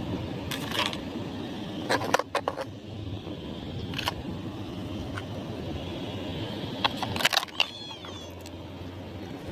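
Hard plastic toy cars knocking and clattering as they are picked up and handled: a few sharp knocks about half a second in, a cluster near two seconds, single ones near four and five seconds, and another cluster about seven seconds in, over steady low background noise. A brief wavering high sound follows just after the last cluster.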